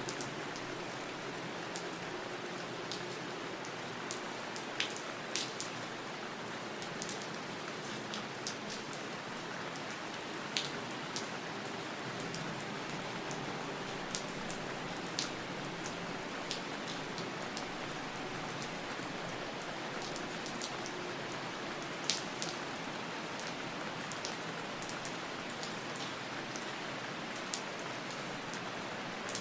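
Steady rain falling, an even hiss with scattered louder individual drops hitting close by.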